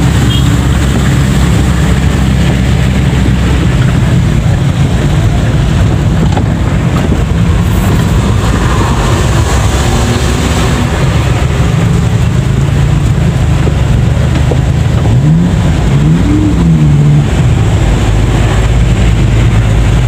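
Daihatsu Charade G10's small three-cylinder petrol engine running steadily as the car drives, heard from inside the cab, with a brief rise and fall in pitch about three quarters of the way in.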